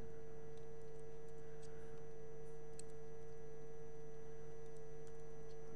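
Steady electrical hum made of several constant tones, with a few faint, short clicks scattered through it.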